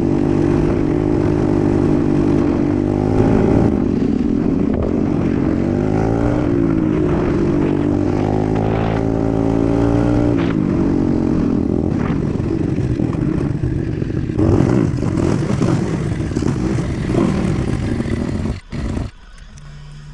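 125cc dirt bike engine running while riding, its revs rising and falling several times. The sound drops away suddenly near the end.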